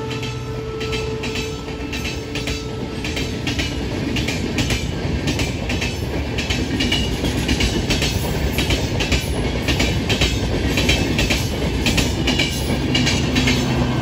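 Indian Railways LHB passenger coaches passing close by at speed: a steady rumble of wheels on the rails with rapid clickety-clack as wheelsets cross rail joints.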